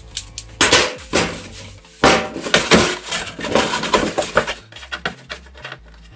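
Cut-up Priority Mail cardboard being folded and creased into a box by hand: rustling, scraping bursts of cardboard handling with small knocks, busiest about two to four seconds in.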